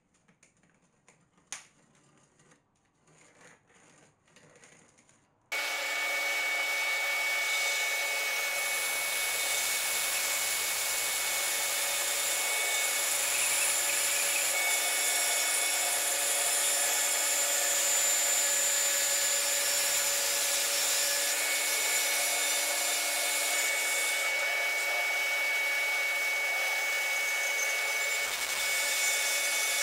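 A bandsaw is running and cutting through a glued-up panel of pallet-wood strips. It is a loud, steady sawing noise with a high, steady whine in it, and it starts abruptly about five seconds in. Before it come a few faint clicks and one sharp click.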